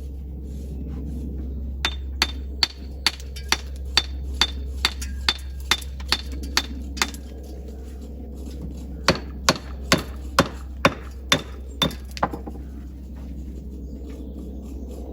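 Hammer blows with a short metallic ring, in two steady runs of about two strikes a second: about a dozen blows, a pause of a couple of seconds, then about nine more. A steady low hum runs underneath.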